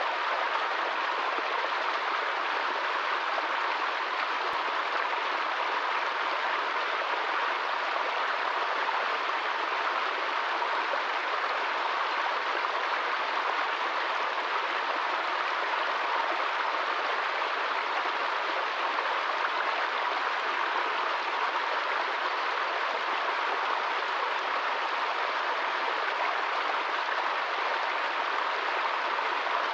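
Small woodland stream splashing down a little cascade over rocks: a steady, unbroken rushing of water.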